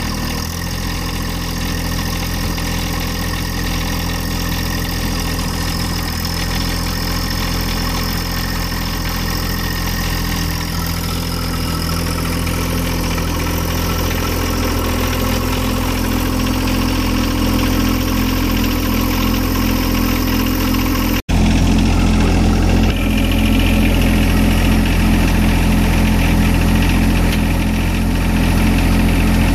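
John Deere 1025R's three-cylinder Yanmar diesel idling steadily just after being started. It drops out for an instant about two-thirds of the way through, then continues a little louder.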